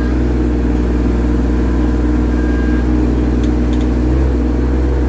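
Engine of an excavating machine running steadily, a constant low drone that does not change in pitch.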